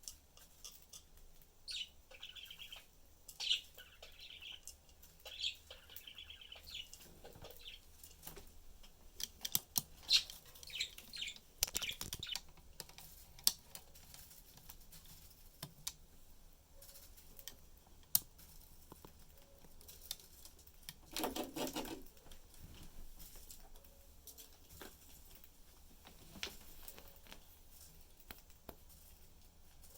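Pet budgies chittering in short high chirps, mostly in the first few seconds, among scattered sharp clicks and taps of beaks and feet on the cage. Just past two-thirds of the way through there is a louder rustling burst of about a second.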